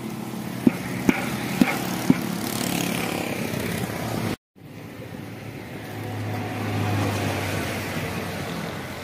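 Jaggery syrup frothing in a large iron karahi while a metal spatula stirs it, striking the pan four times in the first two seconds. The sound cuts out briefly just over four seconds in. Afterwards a low steady hum swells and fades under the bubbling noise.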